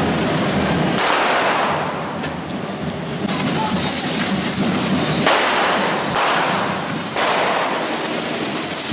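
Correfoc fireworks: hand-held firework fountains spraying sparks with a loud hiss, which starts up afresh several times, with crackling and one sharp bang about five seconds in.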